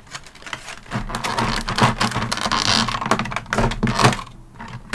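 Clear plastic blister tray crinkling and crackling as it is handled, with sharp clicks and snaps as the tray is pressed and fitted closed.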